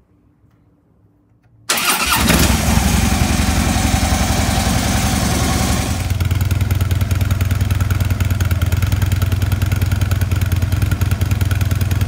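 Stock 2012 Harley-Davidson Ultra Limited's Twin Cam 103 V-twin with its stock exhaust, started about two seconds in and catching at once. It runs harsher for about four seconds, then settles into a steady idle with an even, rhythmic pulse.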